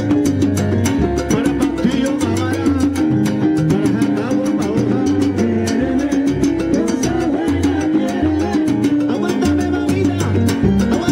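Live salsa band playing: congas and timbales keep a dense, even rhythm over a moving bass line.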